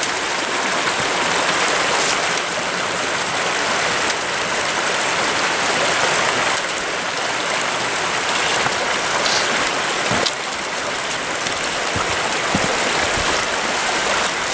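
Small rocky creek rushing over stones close by, a steady noise of running water. A few faint knocks sound over it.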